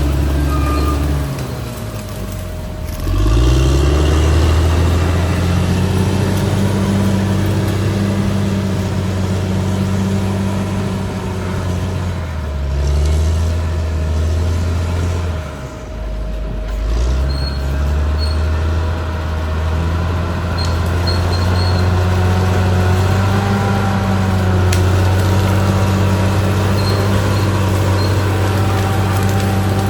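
Caterpillar D6R XL bulldozer's diesel engine running hard under load. Its pitch dips and climbs back about three seconds in and again around the middle.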